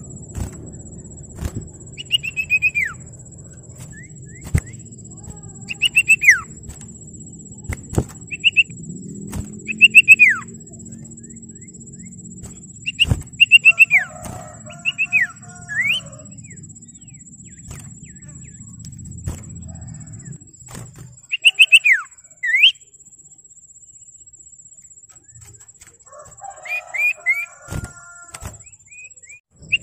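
Common iora calling: short whistled notes that fall steeply in pitch, given in quick groups of two to four every few seconds, with some lower chattering notes between them. Sharp clicks and a steady high whine sound in the background.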